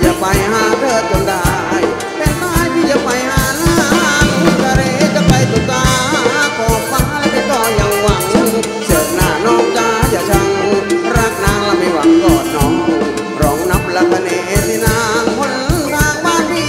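Upbeat Thai ramwong dance music from a live cover band, taken straight from the mixing desk: a steady drum beat under a wavering melody line.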